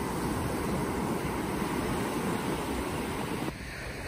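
Small waves washing up and draining back on a sandy shore, a steady rushing wash with wind rumbling on the phone's microphone. The wash cuts off abruptly near the end, leaving a quieter hiss.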